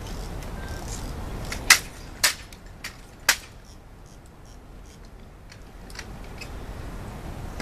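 Sharp clicks of a Tomb Guard's ceremonial drill during the changing of the guard: three loud clicks spread over about a second and a half, with a fainter one among them, over a low steady background hush.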